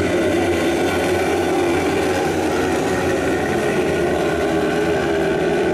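A pack of 500 cc kart cross buggies racing, their motorcycle engines running together in a steady, dense drone.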